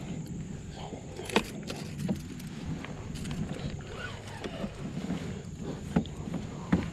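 Pedal fishing kayak moving through calm water: a steady low rumble from the hull and pedal drive, with a few sharp clicks and knocks of gear, the loudest about a second and a half in.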